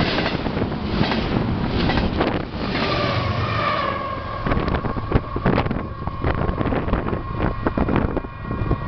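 Union Pacific double-stack intermodal train's last cars clattering past close by, the rush of wheels and cars ending about two and a half seconds in. The train then recedes, leaving a steady high ringing tone, with wind buffeting the microphone.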